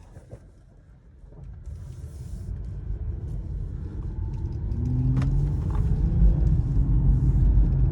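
Infiniti Q50 3.0t's twin-turbo V6 pulling the car away under light throttle, its low rumble and road noise growing steadily louder as the car picks up speed. A short click right at the start.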